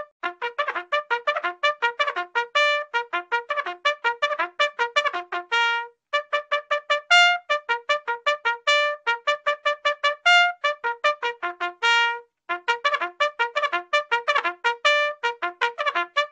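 A brass horn playing a fast bugle-style call of rapidly tongued notes, many a second, hopping among a few pitches and broken by a few longer held notes. There are brief pauses about six and twelve seconds in.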